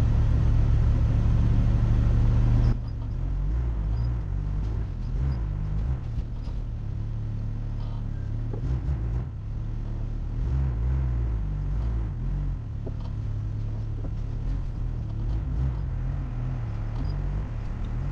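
Off-road vehicle engine running with a steady low drone, with small knocks and rattles. About three seconds in the sound drops suddenly to a quieter, uneven engine rumble.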